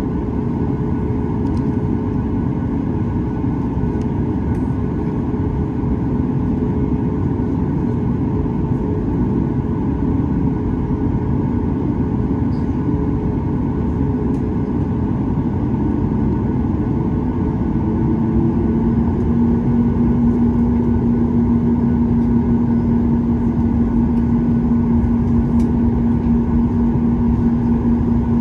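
Boeing 737-8 MAX's CFM LEAP-1B jet engines heard from inside the cabin, a steady rumble with a steady hum. A little past halfway a new, stronger tone comes in and the sound grows slightly louder as the engines spool up for the takeoff roll.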